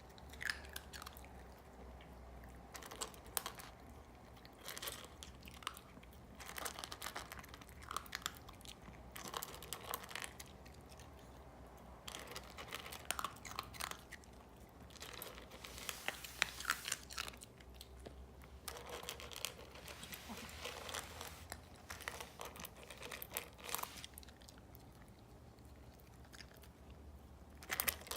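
A dog crunching and chewing its food, in irregular bursts of crunches broken by short pauses.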